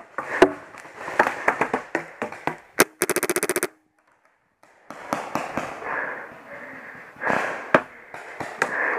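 Paintball markers firing: scattered sharp shots throughout, with a rapid burst of about a dozen shots in under a second about three seconds in.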